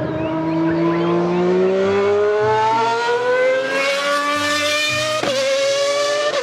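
Formula One race car engine running and climbing steadily in pitch for about five seconds, with a brief click and dip about five seconds in, then holding at the higher pitch.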